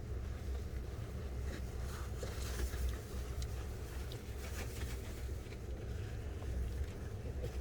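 Low, uneven rumble on the microphone with faint scattered rustles and clicks.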